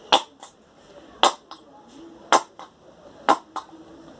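Squeeze bottle of white school glue spurting and sputtering air in short sharp puffs, some in quick pairs, as it is squeezed nearly empty with the cap still partly on.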